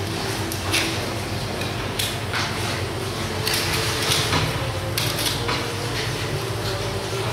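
Boning knife scraping and cutting along the bone of a raw meat joint, with short metallic scrapes and clinks from the blade and the steel mesh glove, over a steady low background hum.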